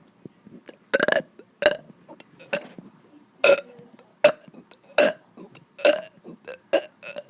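A child burping over and over: a run of about eight short, loud burps, roughly one a second, with a few smaller ones in between.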